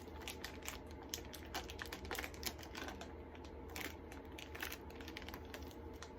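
Irregular light clicks and crinkles of plastic being handled as store-bought icing goes into a plastic piping bag.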